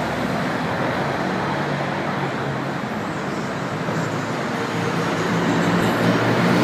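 Steady street traffic noise, a continuous rumble of road vehicles.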